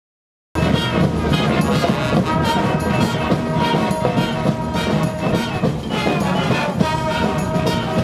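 Marching street brass band playing a tune: trombones, saxophones, trumpets and sousaphones over a steady beat, starting abruptly about half a second in.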